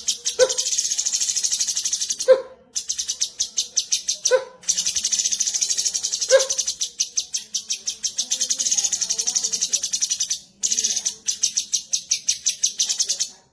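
Cucak cungkok song: a fast, high chattering trill of rapidly repeated notes, broken by a few short pauses, with a lower single note about every two seconds in the first half.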